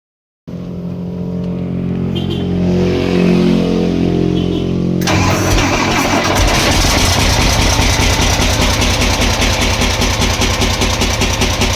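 CAMC truck diesel engine with a knock. For the first five seconds it gives a steady low hum. Then it turns suddenly harsher, into a fast, even clatter.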